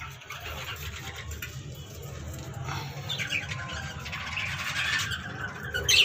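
Budgerigars in a breeding colony chattering and squawking, growing busier and louder towards the end.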